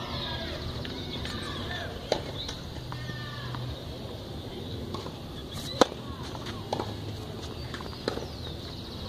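Tennis balls struck by rackets in a rally on a clay court: a few sharp, separate pops, the loudest about six seconds in.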